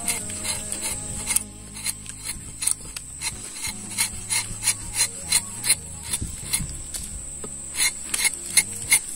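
A curved rubber-tapping knife scraping into the bark of an untapped rubber tree in short, quick strokes, about two or three a second. The blade is cutting a vertical centre line through the bark to mark the halves of a new tapping panel.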